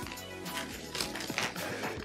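Background music with a clear plastic parts bag crinkling and rustling as it is handled.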